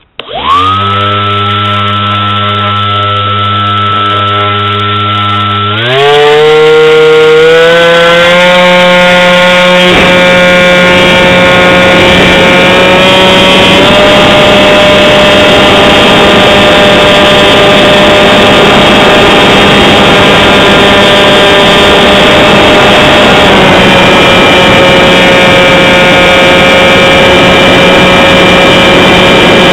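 Radio-controlled model airplane's motor and propeller starting up with a steady whine, heard close up from the plane itself. About six seconds in the pitch rises to a higher speed, which then holds steady with only small shifts while the plane flies.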